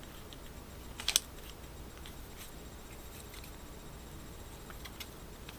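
Plastic twisty puzzle being turned by hand: scattered light clicks of the layers, with one sharper click about a second in.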